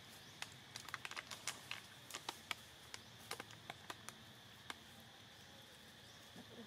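Quick, irregular crackling clicks of dry leaf litter as monkeys move about on the forest floor. The clicks come in a cluster and die away near the end.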